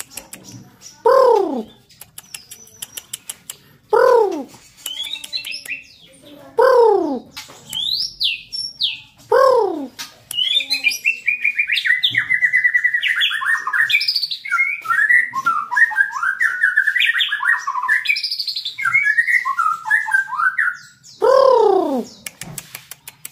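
White-rumped shama (murai batu) singing a long, rapid, varied song of high whistled notes from about ten seconds in until about eight seconds later. Before and after the song, a low call slides downward, repeated about every three seconds.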